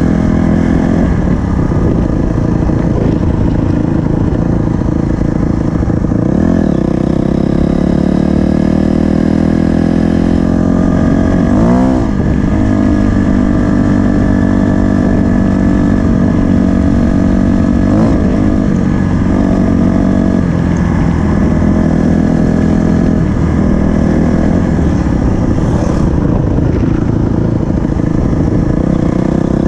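2020 Honda CRF250R dirt bike's single-cylinder four-stroke engine running under way as the bike is ridden. The engine note swings up and down with the throttle a few times.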